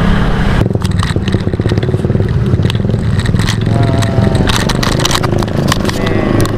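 A bicycle riding along a road shared with motor traffic, with steady low rumble and wind and many short rattles and clatters from the bike over the rough surface. A motor vehicle's engine, most like a motorbike, runs alongside.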